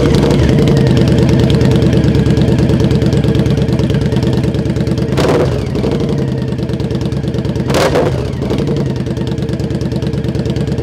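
Indian Scout Bobber's V-twin running through a freshly fitted Freedom Performance slip-on exhaust, idling just after start-up with a deep, throaty note. The throttle is blipped twice, about 5 and 8 seconds in.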